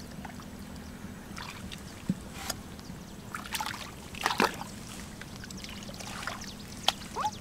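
Muddy shallow water sloshing and splashing as hands and legs move through it to grope for fish, in scattered short splashes and drips, the loudest about four and a half seconds in. A faint steady hum runs underneath.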